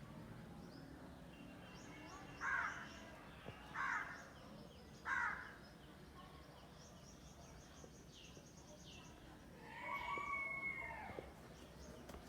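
A crow cawing three times, about a second and a half apart, with small birds chirping faintly. Near the end comes a longer drawn-out call, a rooster crowing.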